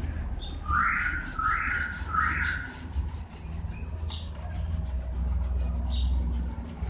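Whiteboard duster wiping marker writing off a whiteboard: three quick rubbing strokes about a second in, then softer wiping, over a low steady hum.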